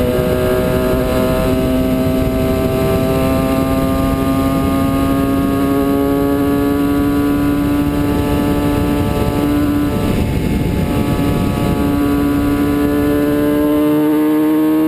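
Kawasaki ZX-6R's inline-four engine running at highway speed, its pitch climbing slowly as the bike gains speed, over a steady rush of wind on the camera.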